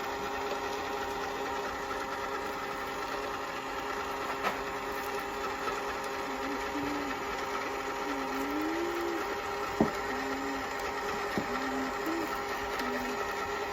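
Small electric motor of an Eggmazing egg decorator running steadily, spinning an egg with a constant hum. There is a single click about ten seconds in.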